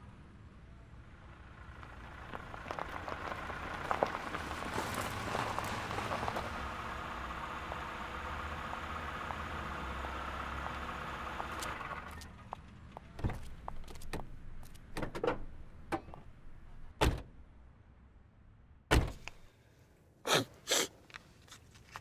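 A car running, swelling for about ten seconds and then dropping away, followed by half a dozen sharp thunks and clicks of car doors opening and shutting.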